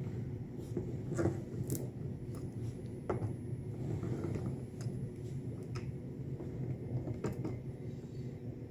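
A hand roller being rolled over an adhesive-backed rack strip to press it onto a cooler: a low steady rumble with scattered light clicks and knocks.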